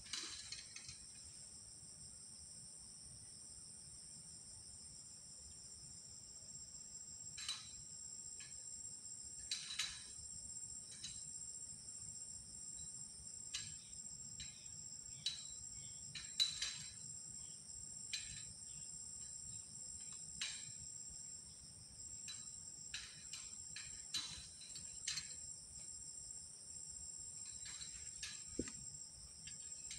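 Steady high-pitched trilling of insects at two pitches, held without a break, with short irregular clicks or rustles scattered through, the loudest about sixteen seconds in.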